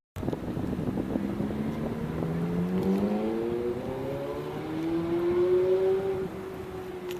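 Ferrari F430 Spyder's V8 accelerating, its exhaust note climbing steadily in pitch for about five seconds. It is loudest around six seconds in, then levels off and fades as the car pulls away.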